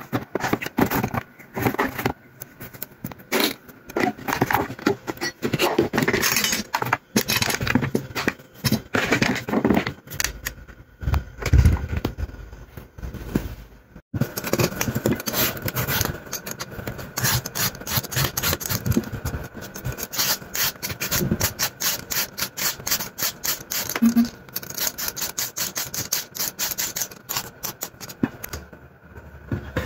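Raw sweet potatoes handled and rubbed against each other in a plastic basin, with a few dull knocks. About halfway through this gives way to a vegetable peeler scraping the skin off a sweet potato in quick, repeated strokes.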